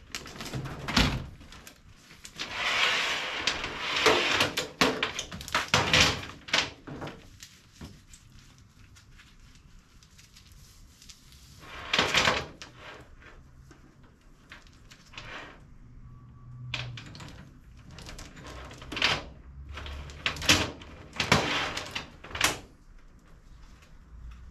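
Steel roller drive chain from a tiller gearbox rattling and clinking as it is handled on a metal toolbox top, in irregular bursts, with a metal toolbox drawer sliding shut.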